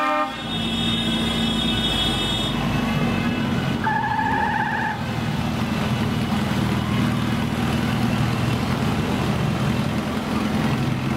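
Motorcycle engine running steadily at slow parade pace, heard from the rider's seat. A short beep sounds for about a second around four seconds in, and a high steady whine runs through the first couple of seconds.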